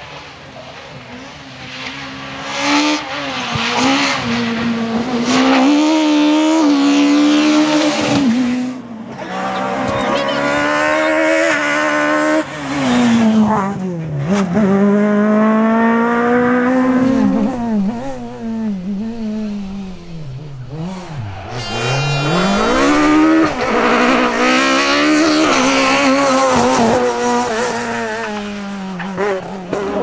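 Peugeot 306 Maxi rally cars' high-revving two-litre four-cylinder engines at full throttle over several passes, the revs climbing through the gears and dropping sharply on the downshifts into corners.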